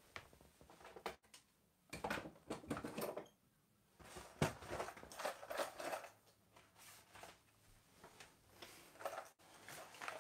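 Someone rummaging through a cupboard for a lure: irregular bumps, clatters and rustles as items on the shelves are shifted and handled, with one sharp knock about four and a half seconds in.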